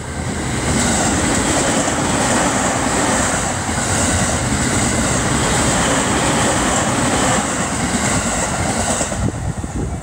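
Utsunomiya Line passenger train passing close by at speed over a level crossing: a loud, steady rush and rumble of wheels on rails that dies away about nine seconds in.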